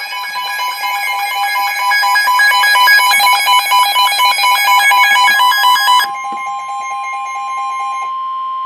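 Emergency Alert System alert tones announcing a severe thunderstorm warning: a loud electronic two-tone alarm that pulses rapidly for about six seconds, then holds steady, and narrows to a single steady tone near the end.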